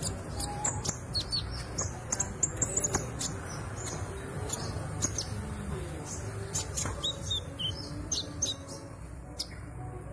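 Young green sunbird (kolibri ninja) twittering in rapid runs of short, high chirps and trills, practising its song, over a steady low hum.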